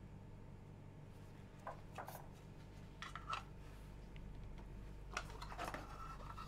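Faint scratching and light plastic clicks as a cotton swab is rubbed over an agar plate in a plastic Petri dish and the plastic labware is handled, in a few short bouts over a steady low hum.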